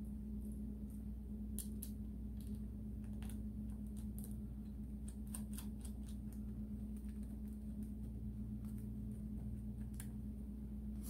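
Light, irregular clicks and taps of wire ring terminals and small hardware being handled on a motorcycle's battery cable connection, over a steady low hum.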